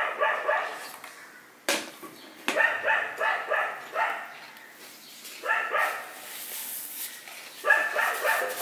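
Dogs barking in short volleys every second or two. The speaker guesses the clamour means someone has entered the garden to work.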